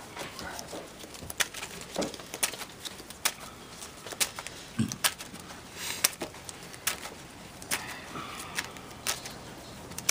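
Sleeved trading-card deck being shuffled by hand: irregular sharp clicks and snaps of the cards, about one or two a second.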